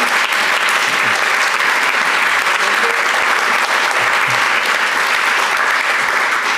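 A large audience applauding, with dense, steady clapping that holds at an even level throughout.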